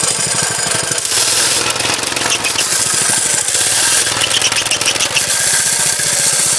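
The 178cc single-cylinder pressure-washer engine on a motorized go-ped scooter running loud, firing in rapid, even pulses. Its note shifts about a second in.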